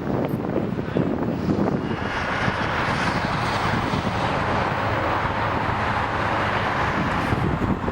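Jet airliner engines running, a broad roar that swells from about two seconds in and eases near the end, with gusting wind buffeting the microphone.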